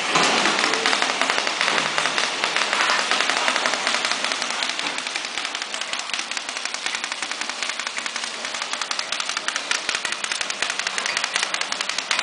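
Pillow-type horizontal flow-wrapping packing machine running, with a rapid, even clatter from its conveyor and wrapping mechanism.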